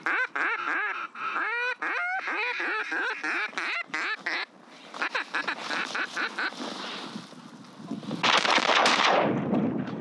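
Duck call blown by a hunter in a fast series of quacks for the first four seconds or so, then a quieter stretch. About eight seconds in, a loud rush of noise lasts about a second.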